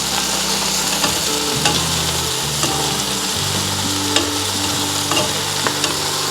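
Chicken pieces sizzling as they brown in a hot pot, with scattered clicks and scrapes of a utensil flipping them over.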